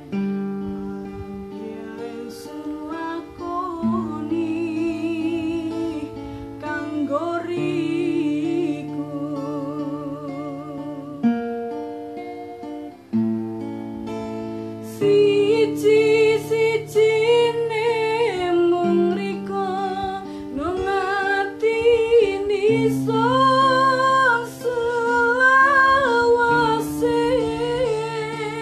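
A woman singing a slow song with vibrato to acoustic guitar chords, the chords held for several seconds each under the voice. The singing grows louder about halfway through.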